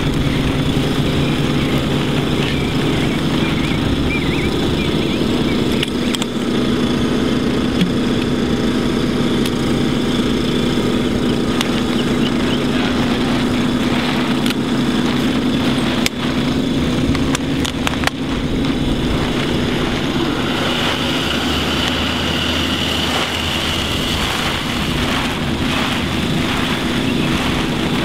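Small engine-driven water pump running steadily at a constant speed, feeding water through the fill hose into the flood-barrier tubes. A few brief knocks sound over it.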